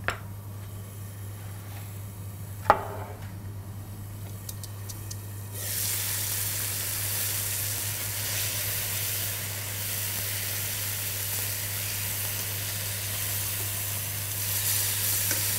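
A sharp knock about three seconds in, then from about five and a half seconds a steady sizzle of chicken breast pieces frying in a pan as the lid comes off and they are turned.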